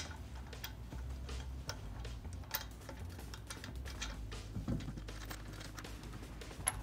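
Scattered light clicks and taps of hand tools and brake parts being handled, irregular rather than rhythmic, with a sharper click at the start and another near the end, over a low steady hum.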